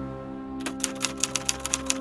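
Old manual typewriter being typed on: rapid key clacks, about six a second, starting about half a second in, over background music of held tones.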